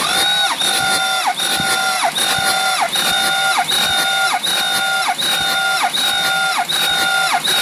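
Ford 6.0L Power Stroke V8 diesel being cranked over by its starter during a compression test, turning but not firing. It is a loud, steady starter whine whose pitch sags and recovers about every three-quarters of a second as the engine comes up against compression.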